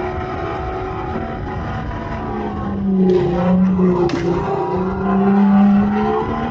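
Synthetic engine sound played by electric go-karts while racing: a steady engine-like drone whose pitch dips and then climbs again about three to five seconds in.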